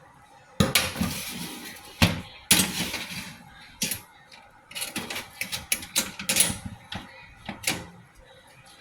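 Kitchen clatter: a series of sharp knocks and clanks from cookware and utensils being handled, with short rustling or scraping noise after some of the knocks. The knocks come singly at first, then in a quicker run through the second half.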